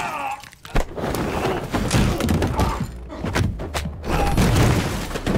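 Film fight-scene sound: a run of heavy thuds and blows during a close-quarters struggle, with a man's strained yelling near the start.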